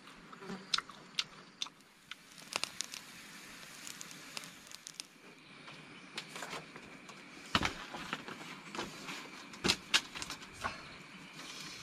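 Wood campfire crackling, with irregular sharp pops and two louder snaps in the second half.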